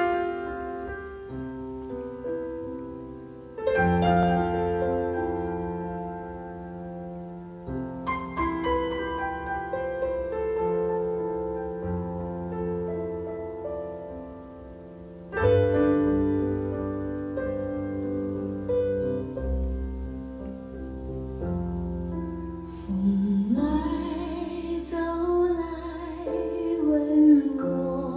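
Piano intro of a Mandarin pop ballad played back on a hi-fi system: chords struck every few seconds that ring out and fade. A wavering melody line joins over the last few seconds.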